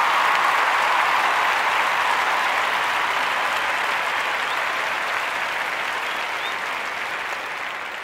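Crowd applause, growing gradually fainter over the last few seconds.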